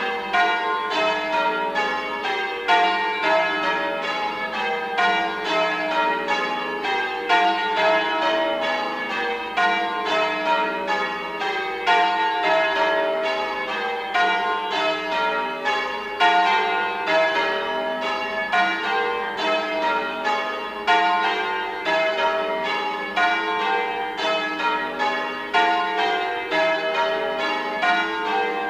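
Church tower bells change ringing: a ring of bells struck one after another without a break, in runs that step down in pitch and start over again and again.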